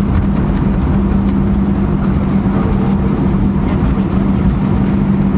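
Cabin noise of an Airbus A319 taxiing after landing: a steady low rumble of the engines and rolling airframe, with a steady hum.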